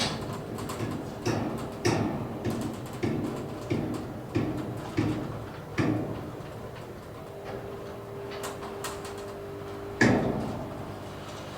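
Automatic tilt garage door moving under its electric opener: a steady motor hum with a regular clunk about every 0.6 s for the first half, then a smoother run and one louder clunk about ten seconds in.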